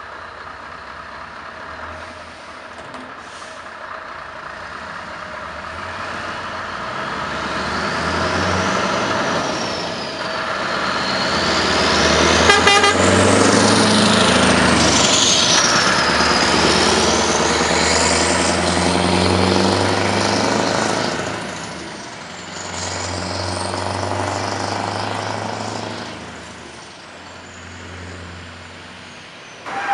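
Scania R500 V8 truck engine accelerating hard as the tractor unit and its trailer pull away past the listener. The sound builds to its loudest in the middle, eases off, swells once more as the truck pulls again, then fades as it drives away. A high whistle rises and falls over the engine.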